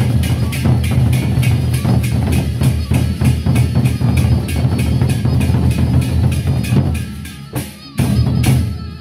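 Gendang beleq ensemble: large Sasak double-headed barrel drums beaten with sticks in a fast, even rhythm of about five strokes a second over a strong low hum. The playing drops away briefly near the end, then comes back with a loud stroke.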